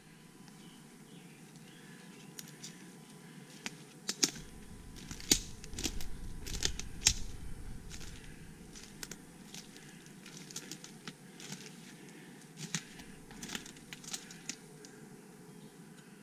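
Footsteps crunching and crackling through dry leaf litter and twigs on a forest floor, in an irregular run of sharp crackles. The crackles are heaviest about four to seven seconds in, with low thumps of footfalls under them.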